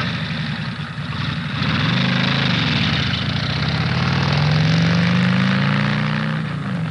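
Chevrolet Avalanche's V8, fitted with an aftermarket cam and headers, revving. The pitch rises about two seconds in and eases down, then climbs and holds higher before dropping back near the end.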